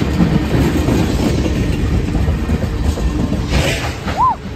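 Tank cars of a freight train rolling past close by: a steady, loud rumble of steel wheels on rail. There is a brief high chirp-like tone near the end.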